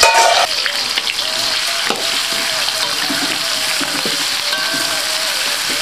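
Ground chili-and-shallot spice paste with leaves sizzling in hot oil in a wok, stirred with a metal spatula that now and then scrapes the pan. The spices are being sautéed until fragrant.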